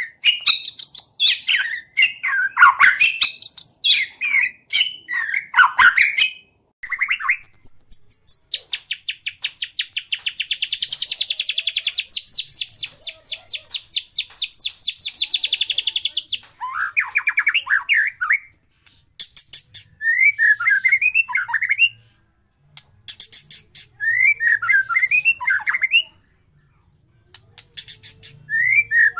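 White-rumped shama (murai batu) singing: short, varied phrases that slide up and down, broken by pauses. In the middle comes a long run of rapid, harsh rattling notes lasting about eight seconds.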